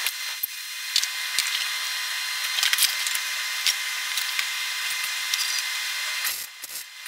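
MIG welding arc laying a weld along a steel floor brace: a steady crackling sizzle with sharp pops scattered through it, breaking off about six seconds in.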